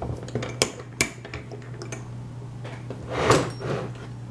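Metal lock-picking tools and a lock being handled: a few sharp metal clicks and clinks, with a louder, longer clatter about three seconds in.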